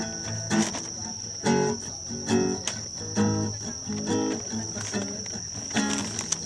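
Acoustic guitar strumming chords in an instrumental break of a song, a stroke roughly every second. A steady high-pitched tone sounds underneath throughout.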